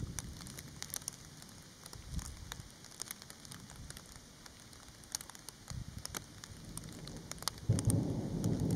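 Light rain in a thunderstorm: scattered single raindrops ticking, with low thunder rumbling that swells and grows louder near the end.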